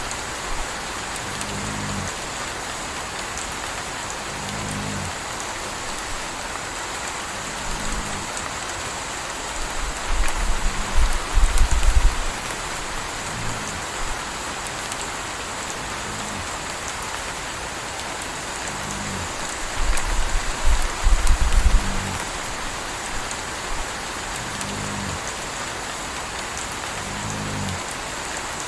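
Steady rain with a puppy snoring, one snore about every three seconds. Twice, about ten and twenty seconds in, a deeper rumble lasting about two seconds.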